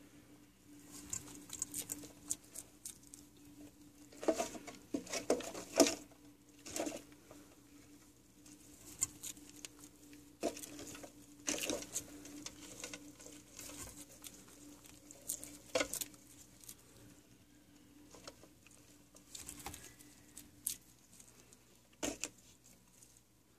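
Irregular light scratching, rustling and clicks from small movements over the bark-chip substrate of a frilled dragon's enclosure. They come in short clusters, with a faint steady low hum underneath.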